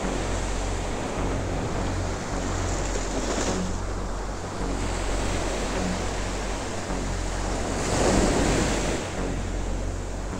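Ocean surf breaking and washing up the beach in steady waves, with a louder surge of wash about eight seconds in. Wind rumbles on the microphone underneath.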